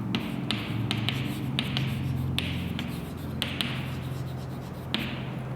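Handwriting: short scratchy strokes of a pen on a writing surface with small taps in between, over a steady low hum.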